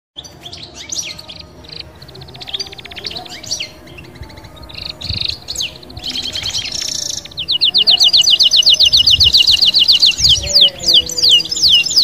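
A small songbird singing: varied chirps and short trills at first, then, about halfway through, a louder, fast, even run of repeated notes, breaking into quick falling whistles near the end.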